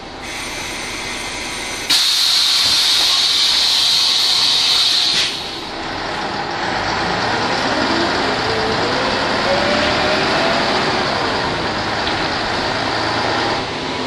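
Ikarus 280 articulated bus heard from inside the passenger cabin. A loud hiss of compressed air lasts about three seconds and cuts off, then the bus pulls away, its Rába D10 diesel and ZF automatic gearbox rising steadily in pitch as it accelerates.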